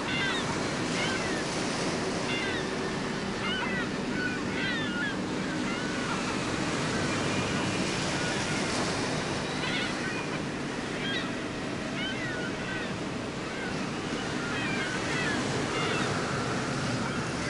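Sea surf washing steadily, with seagulls giving short mewing calls again and again over it.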